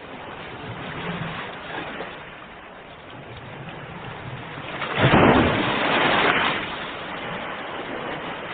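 Ocean waves washing in, with one larger wave breaking about five seconds in, the loudest moment, then slowly receding.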